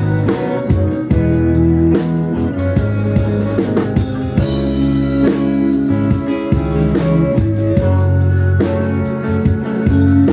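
A live rock band playing: electric guitar and bass over a drum kit keeping a steady beat, with a cymbal crash about four and a half seconds in.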